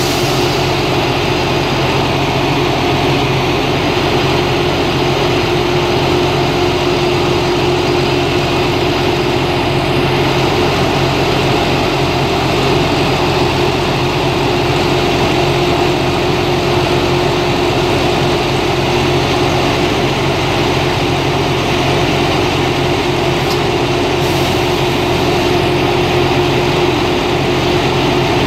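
Rail grinder's diesel engines running steadily at idle: a loud, even drone with a constant hum.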